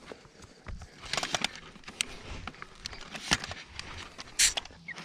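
Handling noise of hunting gear: irregular clicks, knocks and rustling as a rifle with its sling is set onto shooting sticks, with the sharpest knock a little past three seconds in and a brief scraping rustle near the end.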